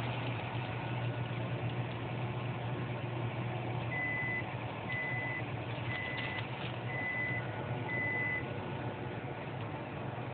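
Five short electronic beeps of the same high pitch, about a second apart, over a steady low hum.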